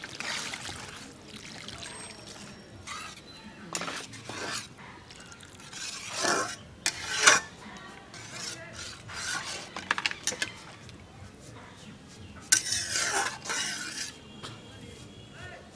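Water poured from a plastic mug into simmering curry in an aluminium kadai, then a metal spatula scraping and clanking against the pan as the curry is stirred, with one sharp clank about seven seconds in.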